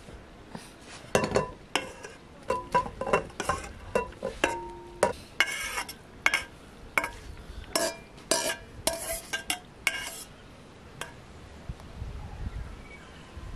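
A metal spoon scraping mashed cranberries out of a bowl into a glass bowl, with a quick run of clinks and taps against the bowls' rims, some ringing briefly. It dies away about ten seconds in.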